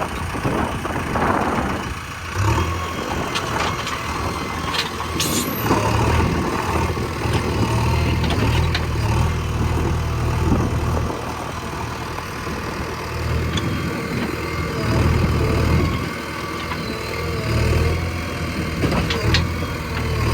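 Backhoe loader's diesel engine running under working load, its low drone swelling and easing every few seconds as the hydraulics work, with a few sharp knocks.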